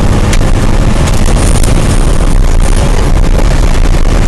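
Fire engine driving, heard inside the cab: a loud, steady low rumble of engine and road noise, with a few light rattles.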